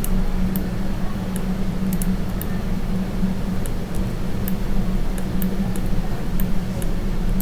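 Steady low electrical hum with light clicks scattered at irregular intervals, typical of a computer mouse and keyboard in use.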